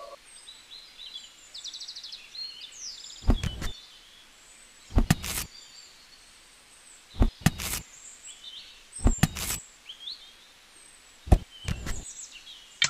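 Several short knocks and scrapes of small hand-held pieces being handled and set down, as the wooden mould is pulled away from a small cast concrete slab and a model transformer is placed on it. Faint bird chirping runs underneath.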